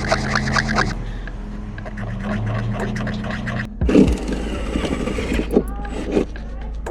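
Power drill running and cutting a hole through the truck's sheet-metal cab roof, with a scraping edge to it; the sound breaks off suddenly a little past halfway and picks up again.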